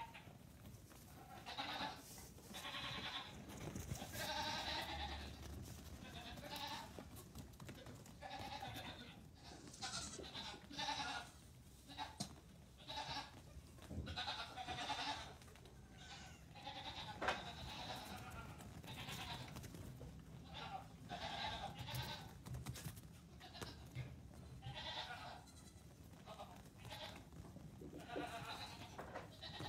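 Goat kids bleating, a long string of short calls one after another with brief gaps between, and a single sharp tap a little past halfway.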